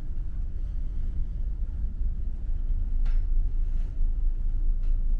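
Steady low rumble of a ferry under way, its engines and hull droning through the ship, with a couple of faint ticks about three and five seconds in.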